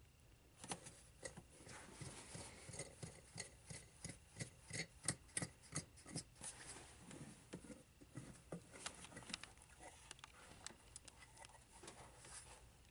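Faint, irregular light clicks, taps and rubbing from hands handling parts or tools, thickest in the middle of the stretch.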